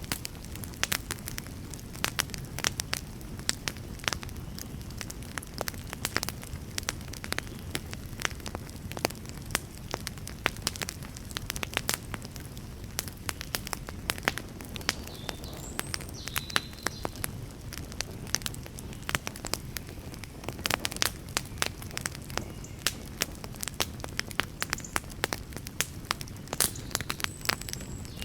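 Wood fire burning: a steady low rumble under frequent, irregular sharp crackles and pops from the burning logs, several a second and bunched in clusters. A few faint, brief high whistles come through around the middle and near the end.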